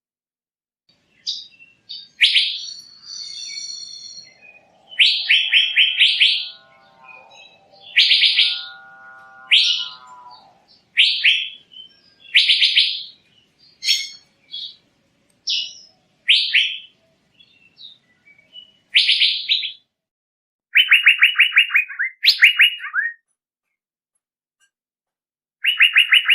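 Male Asian fairy-bluebird calling: short bursts of rapid, sharp notes repeated every second or two with brief pauses. From about four to ten seconds in, a lower, steadier tone runs beneath the calls.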